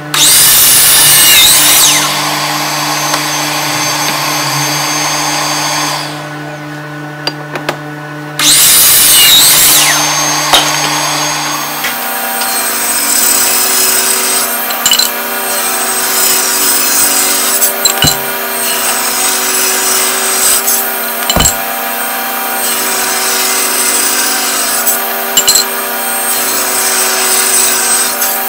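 A Grizzly jointer runs with a steady hum and cuts loudly twice as a board is fed across its cutterhead. Then a table saw runs steadily while a board is ripped along its fence, with a few light knocks of wood.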